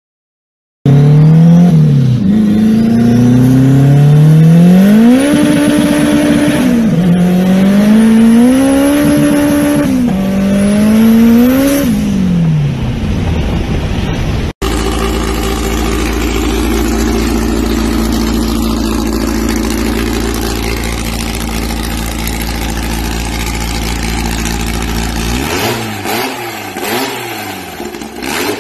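Car engines in turn. First a Renault Clio's engine revs up and down through several pulls, with a faint high whistle rising on each pull. After an abrupt cut comes a steady engine drone with a deep rumble. Near the end a VW Beetle's air-cooled flat-four with a straight pipe is blipped quickly by hand at the throttle linkage.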